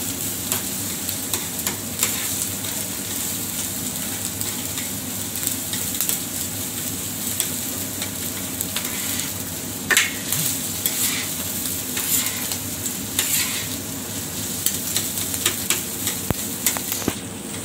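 Eggs and vegetables sizzling on a hot flat-top griddle while a metal spatula chops and scrapes across the steel plate, giving many short scraping and tapping strokes over the steady sizzle; one louder scrape comes about ten seconds in.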